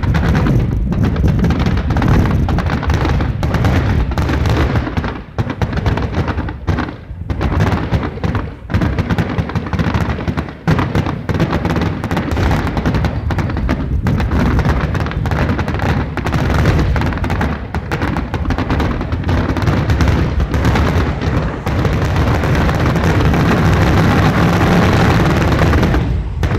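Fireworks display: a dense barrage of booms and crackling bursts going off in rapid, almost unbroken succession, easing off just before the end.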